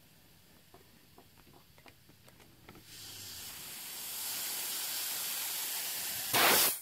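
High-pressure air hissing through a fill probe into a PCP air rifle's reservoir as it is slowly filled from a tank. A few faint ticks come first; the hiss grows louder from about three seconds in, and near the end a short, louder burst of hiss cuts off suddenly.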